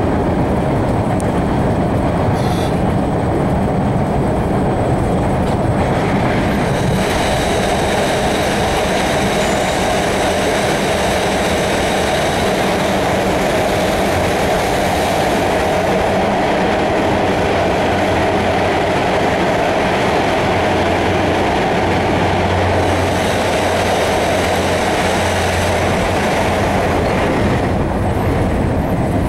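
MBTA Red Line subway car running at speed, heard from inside the car: a steady rumble and rail noise, with a high whine that sets in about seven seconds in and fades out near the end.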